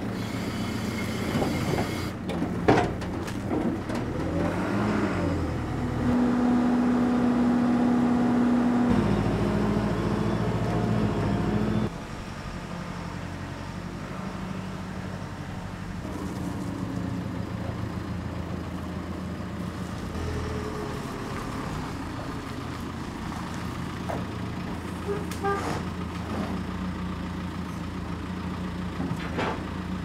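Diesel engine of a JCB telehandler running while the machine drives and carries a log. The engine swells and falls back once, runs louder for several seconds in the middle, then drops suddenly to a steady lower run.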